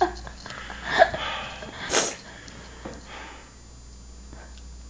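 A person's sniffs and breathy vocal noises, a few short bursts in the first three seconds, loudest about a second in, then only quiet room background.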